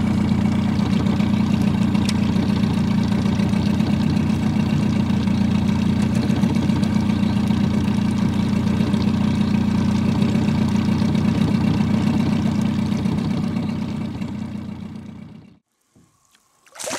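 Small boat's outboard motor running steadily, fading out near the end.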